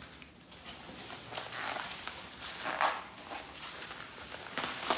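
Cardboard shipping box being opened by hand: flaps scraping and plastic packaging inside rustling and crinkling in irregular bursts, with sharper noises about three seconds in and near the end.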